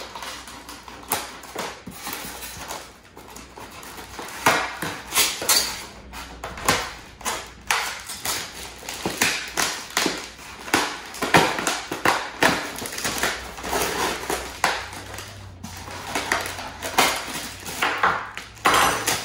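Cardboard box and packing being handled: irregular rustling and scraping with light knocks.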